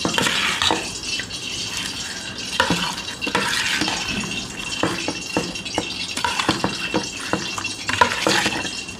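A steel spoon stirring a thick, wet chicken marinade with fried onions and potato chunks in a stainless steel bowl: squelching mixed with irregular clicks and scrapes of spoon against the bowl.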